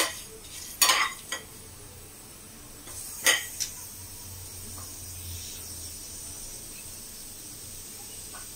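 A spatula stirring whole spices (dried red chillies, cloves, peppercorns, cumin and coriander seeds) as they roast in a pan, with a few sharp clinks and scrapes against the pan around the first second and again about three seconds in, over a faint steady sizzle and low hum.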